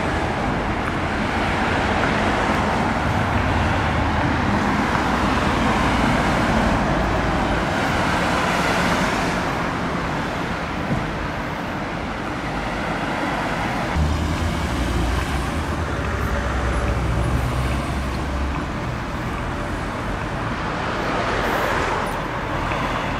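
Road traffic: cars passing on a street, a continuous rumble of engines and tyres that swells and fades several times as vehicles go by.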